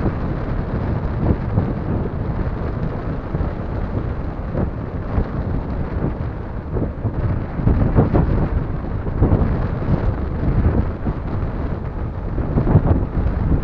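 Strong wind buffeting the microphone: a loud, gusting rumble with irregular surges.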